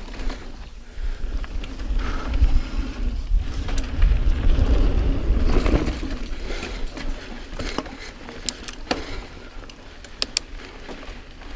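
Niner EMD 9 hardtail mountain bike ridden over a dirt trail: tyres rolling on the dirt and the bike rattling, with sharp clicks over bumps, over a low wind rumble on the microphone.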